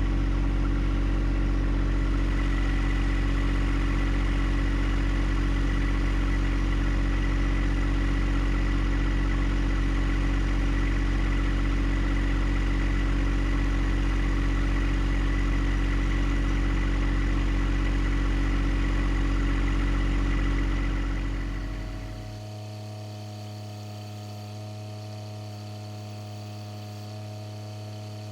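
John Deere 1025R compact tractor's three-cylinder diesel engine running steadily, then shutting off about 22 seconds in; a low steady hum remains after it stops.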